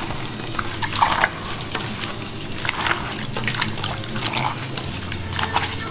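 Wet squelching and sloshing of small whole cucumbers being tossed by a gloved hand in a stainless steel bowl of salty chilli-and-garlic marinade, in quick irregular strokes.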